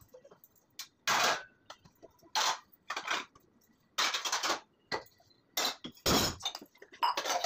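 Stainless steel plates and bowls clattering as they are wiped with a cloth and set on a steel dish rack, in short bursts of clanks about once a second.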